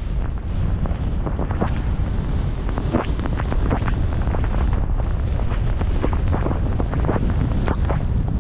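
Wind rushing over an action camera's microphone while skiing powder, with frequent short crackles and scrapes of skis cutting through the snow.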